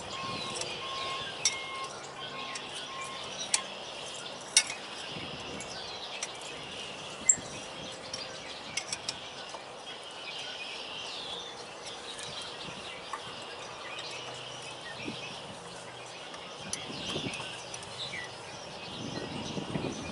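Hand tools working a seized bolt on a Detroit Series 60 diesel's alternator bracket: scattered sharp metallic clinks, a few louder ones among them. Birds chirp faintly behind.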